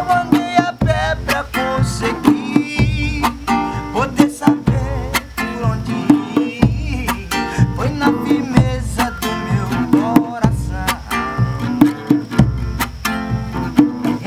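Music: plucked guitar with a steady drum beat and a bass line, and a wavering melodic line over the top.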